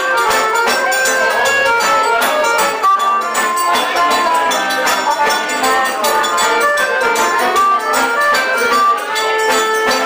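Live forró band playing an upbeat dance groove: accordion and acoustic guitar over zabumba drum and hand percussion, keeping a steady, even beat.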